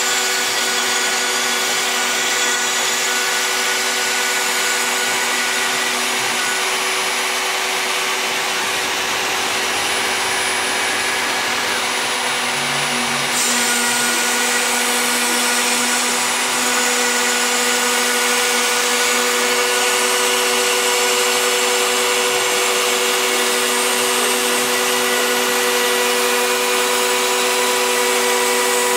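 Router spindle of a homemade CNC machine running steadily while its bit mills into a wood-veneered board: a continuous high whine mixed with the hiss of wood being cut. The sound brightens a little about halfway through.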